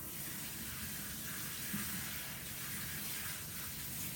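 Tap water running steadily from a faucet into a sink as hands are washed, an even hiss.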